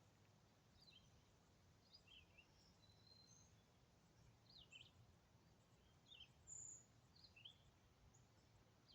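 Near silence, with faint, short, high-pitched bird chirps scattered every second or so.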